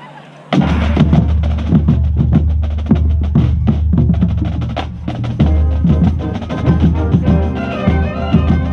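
A marching band starts playing about half a second in, heard close from among the bass drums. Rapid drumline strokes from bass drums and snares sound over sustained low wind chords, and higher held melody notes come in near the end.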